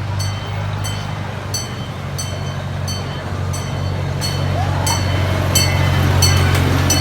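Zoo train ride running on its track: a steady engine drone with sharp clicking clacks of the wheels over the rails, roughly every half second.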